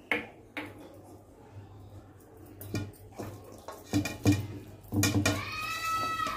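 Hands mixing floured, marinated fish pieces in a steel bowl, with scattered knocks against the bowl. About five seconds in, a high held tone starts and bends downward at the end.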